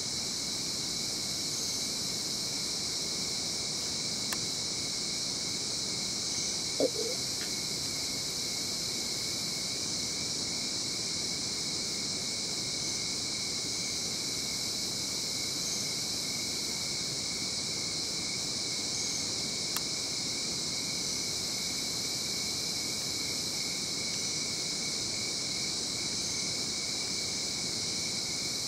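Steady high-pitched insect chorus, unbroken throughout, with one brief louder sound about seven seconds in and a couple of faint clicks.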